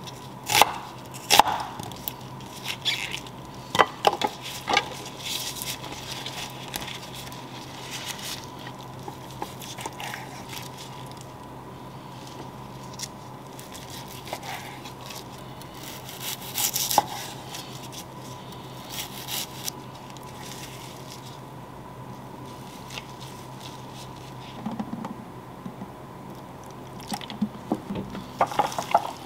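A chef's knife cuts through red onion and knocks sharply on a wooden cutting board several times in the first few seconds. Softer, scattered cuts follow as the knife slices raw steak into thin strips, all over a steady low hum.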